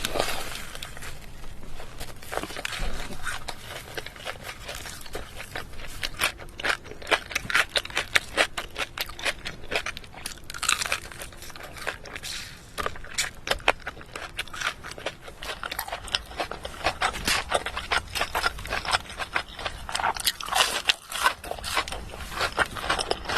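Crunchy food being bitten and chewed: a dense run of sharp crunches and crackles, coming in bursts.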